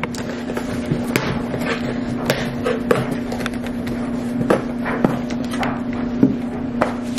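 Cardboard shipping box being torn open by hand: scattered rips, scrapes and knocks of the flaps, over a steady low hum.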